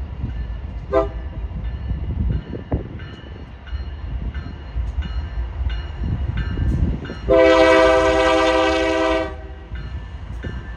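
Lead diesel locomotives of a BNSF freight train approaching with a steady low engine rumble. The air horn gives a brief toot about a second in, then a loud blast of about two seconds near the end.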